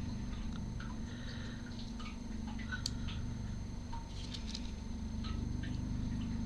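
Scattered, irregular light clicks and ticks of a plastic fidget toy being handled, over a steady low hum.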